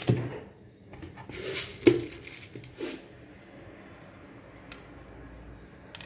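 Handling noises at a kitchen counter: a knock at the start, then rustling with a sharp click about two seconds in, another short clatter a second later, and a faint tick near the end.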